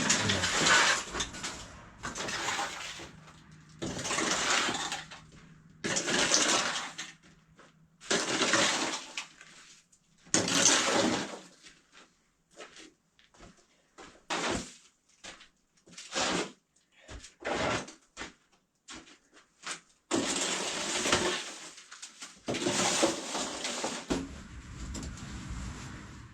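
Broom sweeping a floor in repeated swishing strokes, about one every two seconds, with a run of shorter, quicker strokes in the middle.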